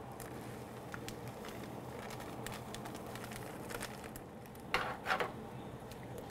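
Squirrel stew with onions and bell peppers sizzling faintly and steadily in a pot. A couple of short rustles about five seconds in as seasoning is shaken out of a small packet.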